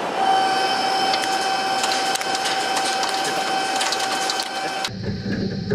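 CNC lathe turning the outside diameter of a metal workpiece: a steady high whine from the cut over a hiss, with quick ticks of chips striking the machine's enclosure. About five seconds in, the sound shifts to a lower, rougher hum with less hiss.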